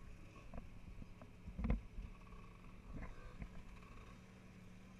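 Daimler Ferret armoured car's Rolls-Royce straight-six engine running with a low steady hum as the vehicle moves slowly, with several knocks and thumps, the loudest about a second and a half in.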